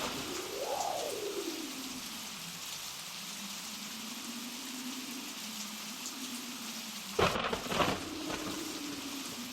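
Blizzard wind: a steady hiss, with a howling tone that rises and falls near the start and then settles low. About seven seconds in come two sharp axe strikes into a log, about half a second apart.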